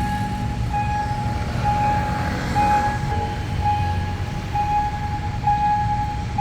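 Level-crossing warning signal sounding a steady tone that pulses about once a second, the alarm for an approaching train while the barrier arms come down, over a low rumble of vehicles.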